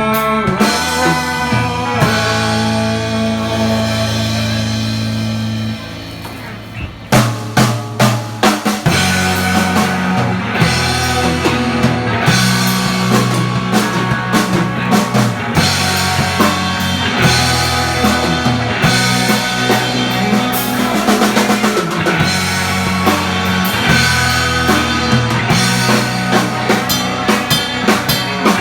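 Instrumental break of a rock song, led by drum kit with sustained bass notes. About six seconds in the band drops back, then a burst of drum hits brings the full band back in.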